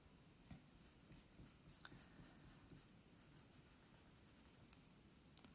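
Faint scratching of a coloured pencil on drawing paper, a run of short, quick shading strokes.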